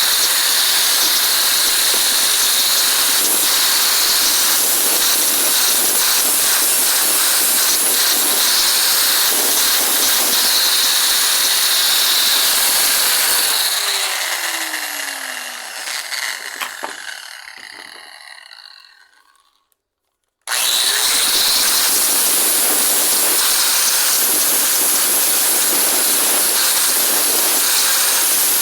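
An electric power tool running steadily at full speed. About halfway through it is switched off and winds down over several seconds with a falling whine, goes silent for about a second, then comes back abruptly at full speed and runs on.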